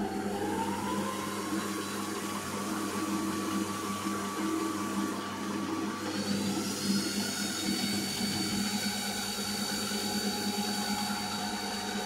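Benchtop metal lathe running while it turns a small screw with a carbide insert, its motor whine stepping up in pitch near the start and again about halfway through as the spindle speed is raised for the shrinking diameter.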